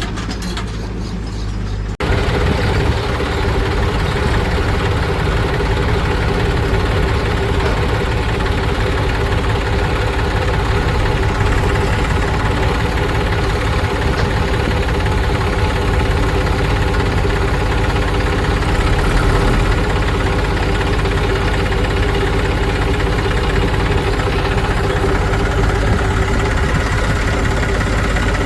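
Heavy diesel engine of farm machinery running steadily at low revs with a knocking clatter. The sound cuts suddenly to a louder section about two seconds in.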